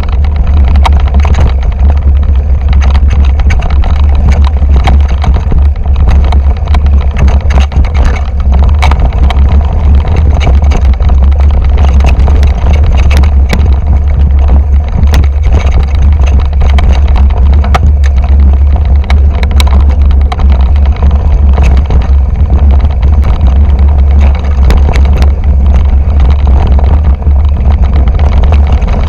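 2008 Intense Tracer mountain bike rattling down a rocky trail, with many sharp clicks and knocks from the bike and the stones under its tyres. Heavy wind buffeting on the GoPro's microphone sets up a loud, steady low rumble.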